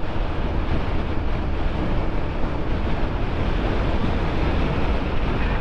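Steady rush of riding wind over the helmet microphone on a moving Triumph Tiger 900 GT motorcycle, with the bike's engine running underneath.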